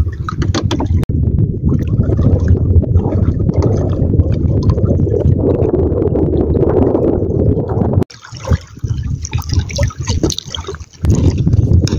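Seawater sloshing and gurgling against the hull of a small outrigger boat, a rough churning wash that breaks off abruptly about eight seconds in and comes back near the end.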